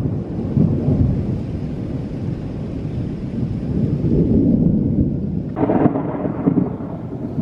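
Rolling thunder: a long low rumble that swells and fades, with a sudden, brighter surge about five and a half seconds in.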